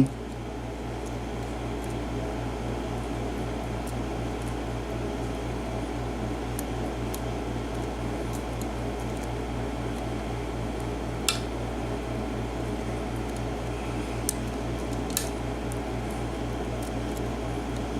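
A steady low hum with a fast, even pulse, with a few faint sharp clicks of a lock pick working the pins of a 5-pin Iseo pin-tumbler lock, the clearest about eleven seconds in and more around fourteen to fifteen seconds.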